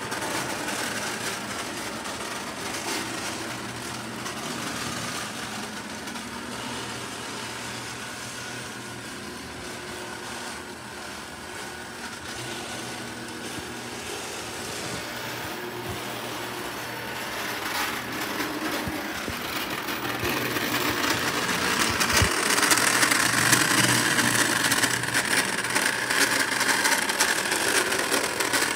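Lionel O-gauge model trains running on three-rail track, a steady hum of electric motors with the rattle of wheels on rails. The sound grows louder over the last several seconds as the Lionel postwar Navy Yard 51 switcher comes close.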